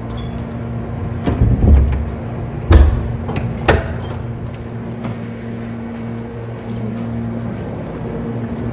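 A door being handled and shut, with several knocks and a heavy thud nearly three seconds in. A steady low hum runs underneath.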